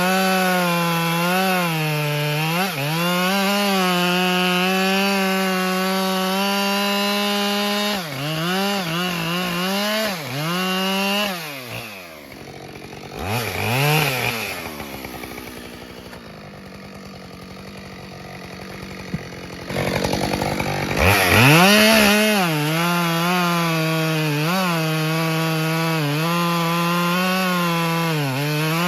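Husqvarna 572 XP two-stroke chainsaw running at full revs, its pitch wavering as it cuts through ash logs. About twelve seconds in it drops to idle for several seconds with one short blip of the throttle, then revs back up and goes on cutting.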